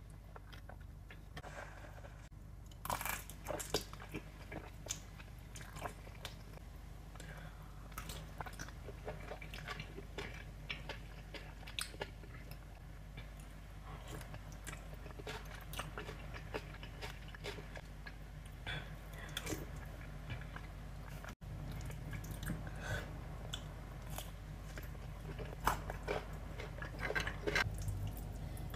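Close-miked eating: wet chewing of noodles with scattered crunchy bites and mouth clicks, over a low steady hum.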